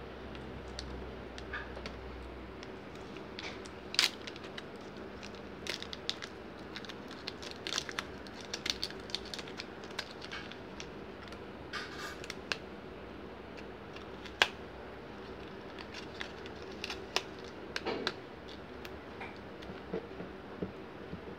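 Scattered small clicks, crackles and soft tearing as a glued phone LCD is pried away from its plastic frame, the adhesive giving way bit by bit. A few sharper snaps stand out, over a faint steady hum.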